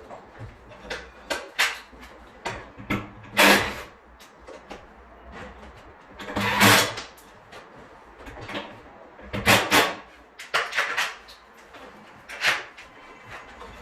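Installation work on a ceiling-cassette air conditioner: irregular knocks and clatters of tools and parts, with a few longer, louder scraping sounds of about half a second.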